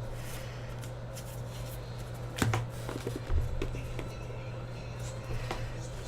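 Baseball trading cards being handled and flipped through by hand: light paper flicks and rustles, with two louder knocks near the middle, over a steady low electrical hum.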